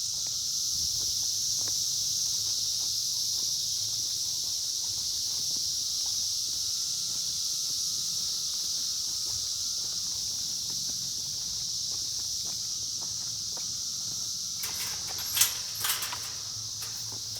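Steady, shrill, high-pitched drone of an insect chorus. A few sharp rustling knocks break in about fifteen seconds in.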